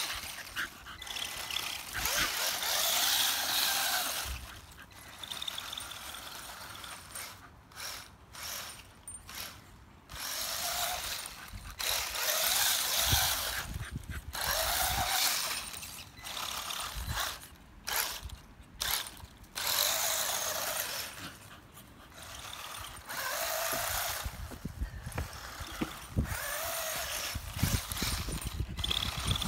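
Small electric motor and gears of a battery-powered RC off-road buggy whirring in repeated spurts of one to a few seconds as it is driven, sped up and stopped across grass, with short pauses between runs.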